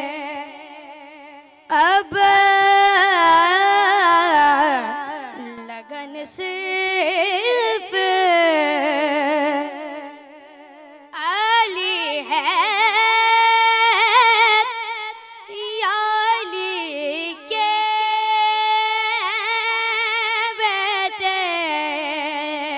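A boy's solo voice singing an Urdu manqabat (devotional praise poem for Imam Ali) unaccompanied into a microphone, in long drawn-out phrases with wavering held notes, pausing briefly near the start and around the middle.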